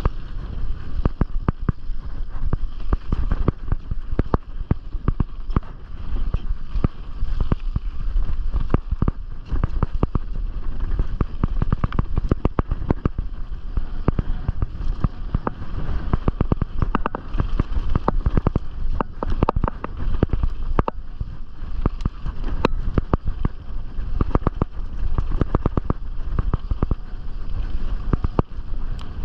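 Canyon Strive mountain bike descending a rough bike-park trail: a dense, continuous clatter of the bike and tyres over the ground, with low wind rumble on the chest-mounted GoPro's microphone.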